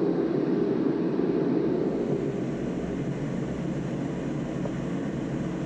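Steady low droning background noise with no clear strokes or changes.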